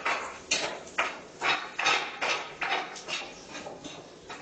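Rhythmic clatter of a kitchen utensil, about two sharp strokes a second, over a steady hiss.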